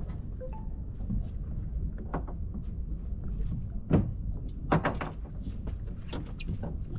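A few sharp knocks and clicks on a small fishing boat, the loudest about four seconds in, over a low steady rumble.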